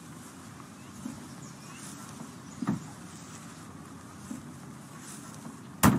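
Quiet outdoor ambience with a soft thud about two and a half seconds in, then a car door shut with a sharp, loud slam near the end.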